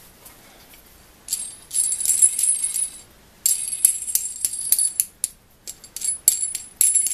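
Metal hand file rasping across steel vise parts with a high metallic ring. There are two long strokes about a second and a half each, then a run of short, quicker strokes.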